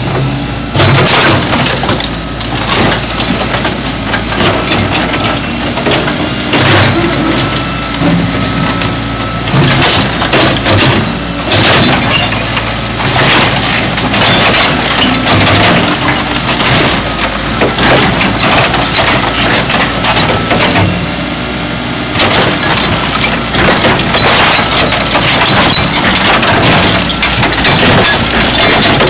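A car body being crushed by a backhoe: sheet metal crunching, cracking and snapping in dense irregular bursts over the steady running of the backhoe's engine.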